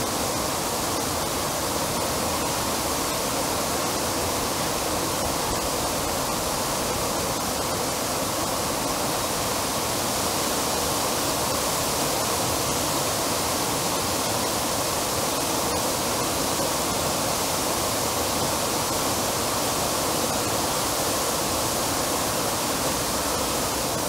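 Plaza fountain with dozens of vertical water jets and a tall centre jet, the water falling back into the basin in a steady, even rush of splashing.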